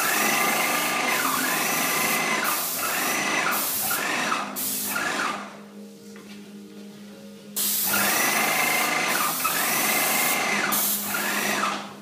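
Airless paint spray gun atomising paint: a loud, steady hiss for about five seconds, a pause when the trigger is released, then a second burst of about four seconds that stops just before the end.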